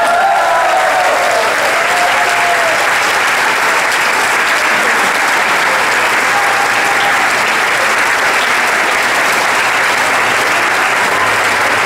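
Audience applauding steadily after a dance performance, with a voice or two calling out in the first couple of seconds.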